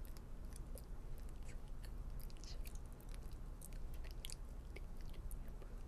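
Faint, irregular mouth clicks and lip smacks over a low, steady hum.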